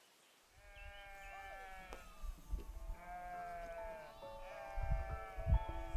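A flock of sheep bleating, many calls overlapping, starting about half a second in. Soft held music notes come in under them from about four seconds in, with a couple of low thuds near the end.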